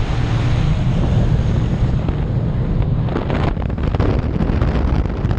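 Wind rushing in through the open door of a small high-wing plane in flight and buffeting the camera microphone, over the low drone of the plane's engine. The gusts grow stronger about three seconds in.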